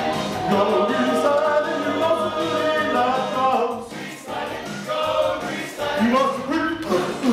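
A group of voices singing together with music, a rock-and-roll show tune performed live on stage.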